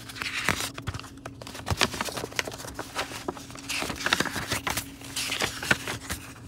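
Paper rustling and soft taps as a picture book is handled and its pages are turned, with several short rustles among irregular light knocks over a faint steady hum.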